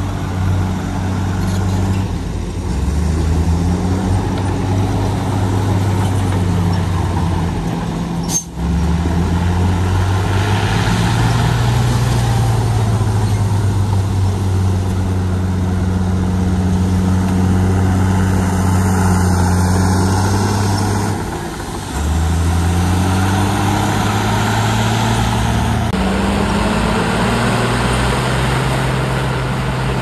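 Heavy diesel engines of earthmoving machinery running under load, the deep engine note rising and falling in pitch several times as the machines work. There is a sharp click about eight seconds in.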